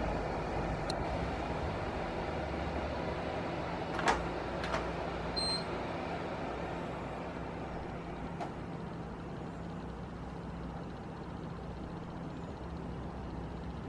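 Steady background hum with a few sharp clicks, the loudest about four seconds in, and a brief high beep shortly after.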